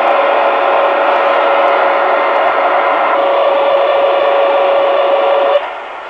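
Digital interference received on AM by a Royce 639 CB radio, heard through its speaker: a harsh, steady buzz with a held tone running through it. It cuts off about five and a half seconds in, leaving plain static hiss.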